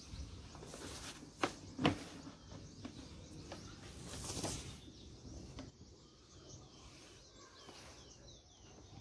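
Outdoor ambience with small birds chirping in the background, short falling chirps through the second half. Two sharp knocks close together about a second and a half in are the loudest sounds.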